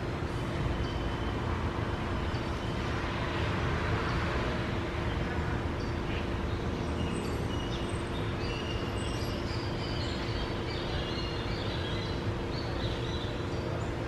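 A steady low rumble with a constant hum, with short, high bird chirps, most of them in the second half.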